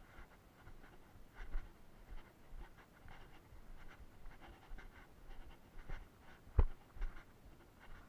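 Footsteps crunching irregularly on dry dirt and loose stones, with one sharper knock about six and a half seconds in.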